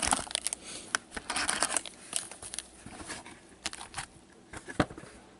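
Gloved hands handling and stacking a pile of trading cards: a run of small clicks and rustles of card stock, busiest in the first couple of seconds.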